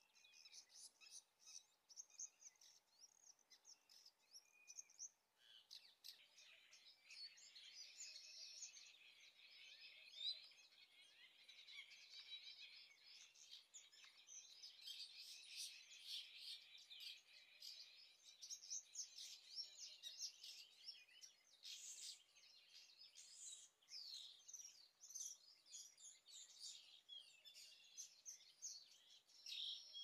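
Long-tailed shrikes calling in courtship: a faint, busy twittering of short, high chirps and warbled notes, sparse at first and thickening into a dense chatter about five seconds in.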